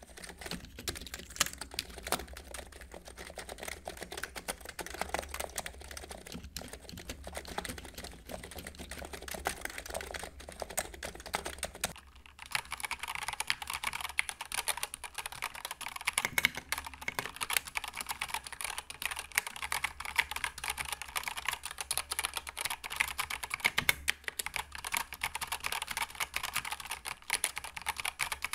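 Fast continuous typing on a Cox Endeavour electro-capacitive tenkeyless keyboard, its keystrokes muted and dull. About twelve seconds in it changes to typing on a mechanical keyboard with Gateron Yellow linear switches, whose keystrokes are brighter and louder.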